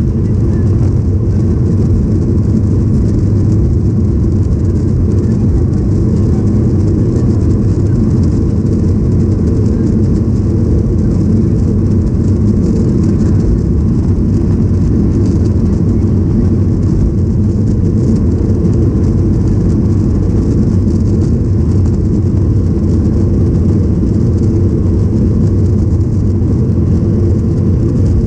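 Steady cabin noise inside a Boeing 737-800 in flight: a constant low drone of its CFM56 engines and the airflow, unchanging throughout.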